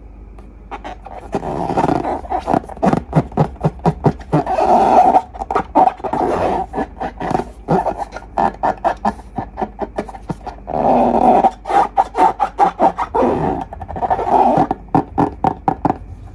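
Raspy, sputtering flutter from a rubber balloon's neck as its contents are squeezed out, in three long bursts of rapid pops.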